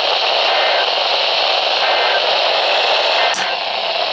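Radio static: a steady hiss from a receiver with no programme on it, with three faint short beeps spaced evenly and a sharp click about three and a half seconds in.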